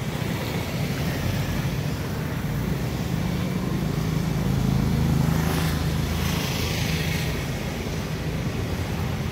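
Road traffic: cars passing on a busy road, a steady engine and tyre rumble that swells as a vehicle goes past about five seconds in.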